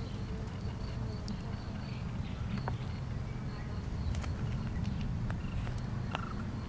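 Insects buzzing close by as a steady low hum, with a few faint scattered clicks.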